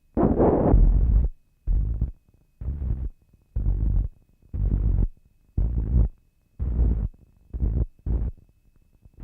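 Synthetic film soundtrack: bursts of rough noise with a heavy low thud switch on and off abruptly, about one a second, with silence between them and the later bursts growing shorter. A faint steady high tone runs underneath.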